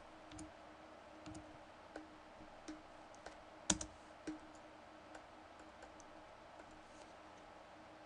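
A few scattered computer mouse clicks and key presses over a faint steady hum, the loudest click a little under four seconds in.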